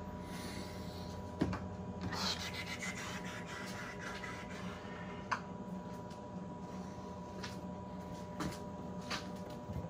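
Cardboard packaging being handled, with a rubbing rustle about two seconds in and a few light clicks scattered through. A steady hum runs underneath.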